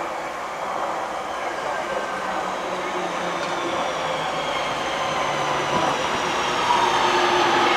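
Class 323 electric multiple unit running in along the platform, its traction motors whining in several tones that fall in pitch as it slows. Wheel and rail noise grows louder as it draws close and passes.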